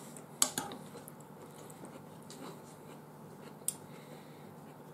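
Cutlery clicking against a plate while eating: a sharp click about half a second in with a couple of smaller taps after it, and another click near the end, over a faint steady hum.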